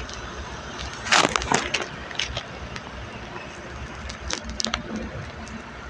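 Steady low rumble of a car in slow traffic heard from inside the cabin, broken by bursts of sharp crackling and clicking about a second in and again around four seconds.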